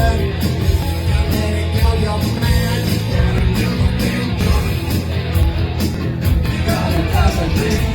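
Live rock band playing, with electric guitar, bass and drums, and sung vocals.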